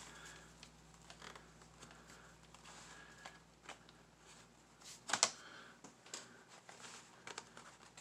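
Plastic bottom cover of a laptop clicking and creaking as it is pressed and worked loose by hand, its snap-in clips giving small scattered clicks, with one louder snap about five seconds in.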